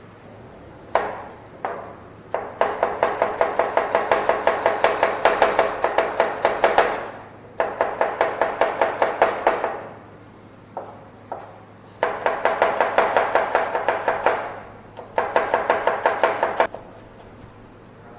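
Chef's knife chopping a red onion on a plastic cutting board: rapid, even knocks at about six a second, in four runs of a few seconds each with short pauses between.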